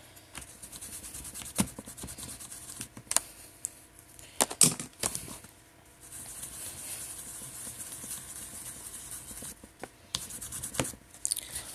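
Makeup brush scratching and rubbing against eyeshadow, with a steady stretch of rubbing in the second half and a few sharp clicks and taps of the brush and palette.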